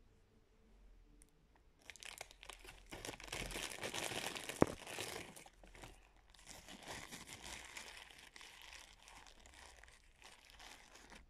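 Plastic bag of cornstarch crinkling and rustling as it is handled, loudest from about two to five seconds in, with one sharp click in the middle. Quieter rustling follows.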